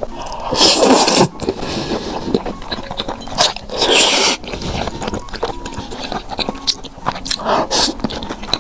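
Close-miked eating: bites and chewing, with short clicks and scrapes of utensils on the dishes and several louder crunching bursts.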